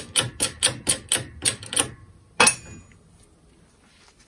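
Bench hydraulic press being pumped in quick strokes, sharp ringing clicks about four a second. The clicks stop, and a moment later there is a single loud crack as the bearing breaks free of the angle grinder's shaft.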